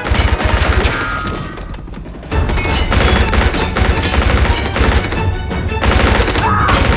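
Rapid automatic rifle fire: a burst right at the start, a lull of about a second, then sustained rapid fire from a little after two seconds in.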